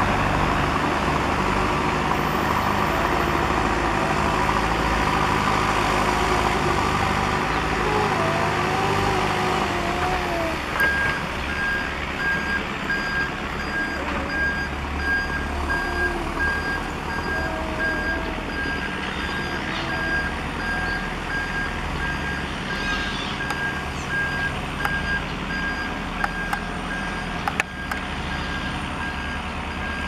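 Diesel engine of a JCB backhoe loader working, its note wavering up and down in the first ten seconds. From about eleven seconds in, a reversing alarm beeps steadily and evenly over the engine.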